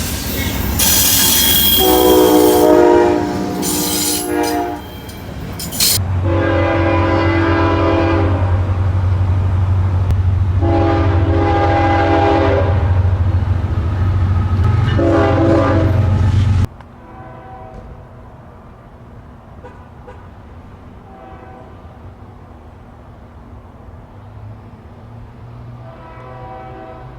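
Locomotive air horn sounding a series of long chord blasts, each held about two seconds, loud and close over a deep rumble from the train. Partway through the sound cuts abruptly to a fainter, more distant train horn sounding a few shorter times.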